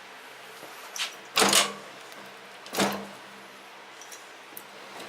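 Hand grease gun being pumped into a grease fitting on a snow thrower transmission: two short, loud, noisy strokes about a second and a half apart, with a small click just before the first.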